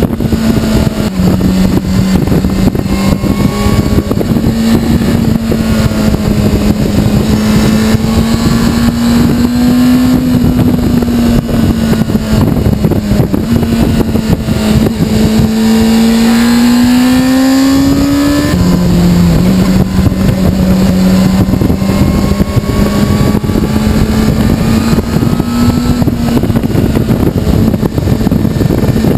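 Honda CBR600RR's inline-four engine running under load. The engine note climbs for a few seconds as the bike accelerates, drops suddenly about eighteen seconds in, then holds steady. A constant rush of wind and road noise runs underneath.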